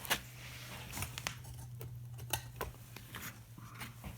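Razor blade scraping and picking at the copper foil on a stained glass piece: an irregular string of short scratches and clicks, over a low steady hum.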